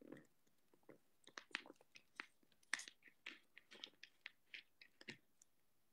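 Near silence broken by faint, irregular small clicks and crackles, a few a second.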